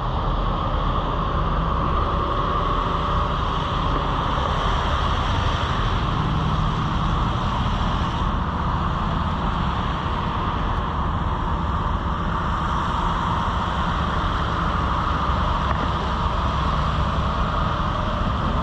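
Steady vehicle noise: a continuous low rumble with an even hiss over it, with no distinct events.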